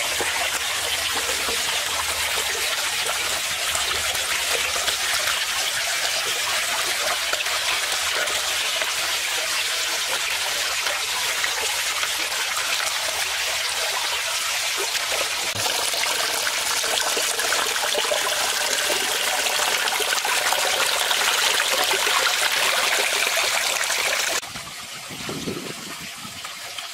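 Water running and splashing steadily over wet stones into a shallow concrete pond, a constant trickling hiss that drops off sharply about two and a half seconds before the end.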